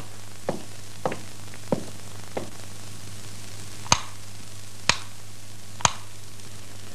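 Footsteps on a hard floor: a run of short sharp taps, evenly paced and fairly soft at first, then three louder, sharper ones about a second apart in the second half, over a steady low hum.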